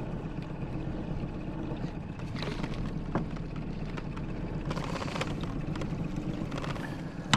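Boat motor running with a steady low hum, and a few splashes in the second half as a hooked fish thrashes at the surface and a landing net goes into the water.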